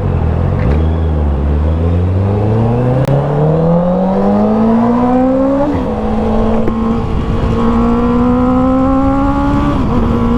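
Honda CB650R's 649cc inline-four engine through an Akrapovic full exhaust system, accelerating hard: the engine note climbs steadily for about five seconds, drops sharply at a gear change about six seconds in, climbs again more slowly, and dips at another gear change near the end.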